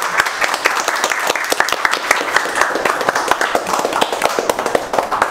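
A group of students applauding together: many hands clapping in a dense, continuous patter.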